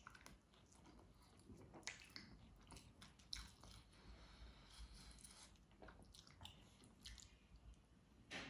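Faint close-miked eating sounds: a piece of lachha paratha squishing as it is dipped and scooped through potato-and-pea curry, with soft wet clicks of mouth and fingers. A longer wet squish comes about halfway through.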